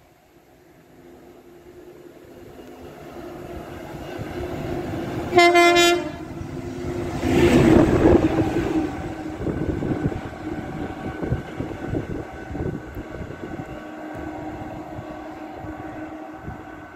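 Yellow Network Rail track maintenance machine approaching, growing steadily louder, sounding one short horn blast about five seconds in, then passing close with a loud rush of engine and wheel noise and rolling on with rhythmic wheel clicks as it draws away.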